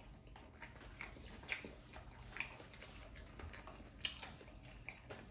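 Faint chewing and mouth sounds of someone eating, with a few soft clicks scattered through, the clearest about a second and a half in and about four seconds in.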